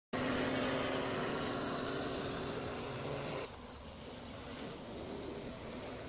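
Agricultural spraying drone's rotors buzzing steadily as it flies over the field. The sound drops suddenly to a quieter level about three and a half seconds in.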